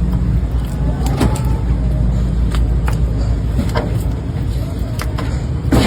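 A steady low engine rumble with scattered sharp clicks and knocks, about eight of them, the loudest near the end.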